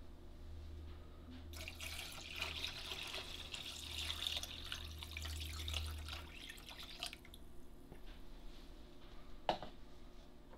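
Water poured from a plastic measuring cup into the tank of an ultrasonic parts cleaner, a splashing pour that starts about a second and a half in and lasts about five seconds. A single short knock follows near the end.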